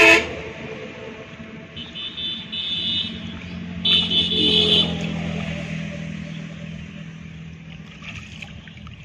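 Two blasts of a vehicle horn, about a second each, the first about two seconds in and the second about four seconds in, over a steady low engine hum that fades near the end.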